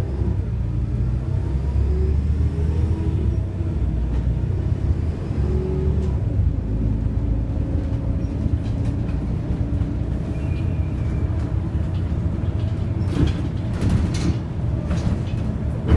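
Volvo B7RLE single-deck bus running, heard from inside the passenger saloon: a steady low engine and driveline rumble with a wavering whine. Several knocks and rattles come about three-quarters of the way through.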